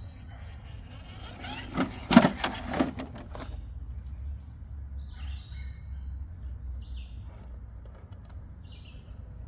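Songbirds chirping in short calls with quick pitch glides over a steady low rumble, with a brief cluster of loud knocks and scrapes about two seconds in.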